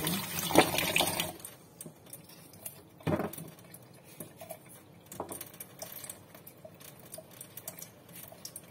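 Kitchen tap water splashing into a stainless-steel sink over rinsing hands for the first second or so, then falling quieter. After that come scattered light clicks and a single sharper knock about three seconds in as a piece of coconut is handled over the sink.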